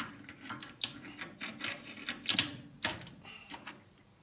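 Lathe three-jaw chuck being loosened by hand with a chuck key, the spindle stopped: a run of irregular metal clicks and rattles as the key turns and the jaws open, with two louder clanks about two and a half and three seconds in.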